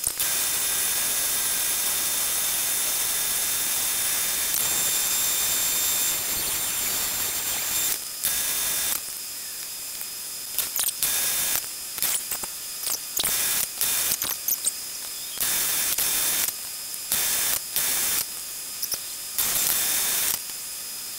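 Angle grinder with a cut-off wheel cutting steel rod stock held in a lathe chuck: a steady hissing cut for about eight seconds, then a run of short bursts with brief pauses between them.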